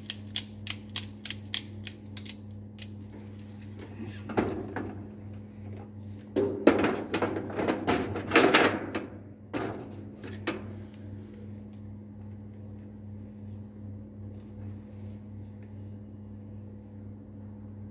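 Steady low hum of a biosafety cabinet's blower, with quick regular ticks (about three or four a second) in the first two seconds. Rustling and knocking of lab equipment being handled follows, loudest from about six to nine seconds in.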